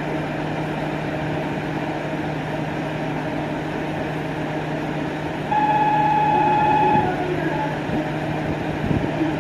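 Kyoto Tango Railway KTR 700-series diesel railcar idling at a platform with a steady low hum. About five and a half seconds in, a loud high steady tone sounds for about a second and a half, and a few short knocks follow near the end.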